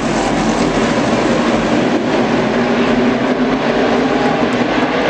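A full field of NASCAR stock cars running past at speed in a tight pack. Their V8 engines blend into one loud, steady noise.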